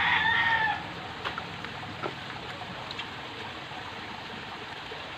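The tail of a rooster's crow, a held call that falls away and stops under a second in. After it comes only faint steady background noise with a few soft clicks.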